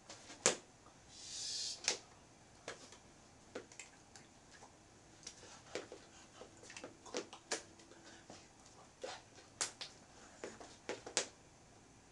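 Scattered sharp slaps and taps of a signer's hands striking each other and her body while signing, irregular and about fifteen in all, with a short breathy hiss about a second in.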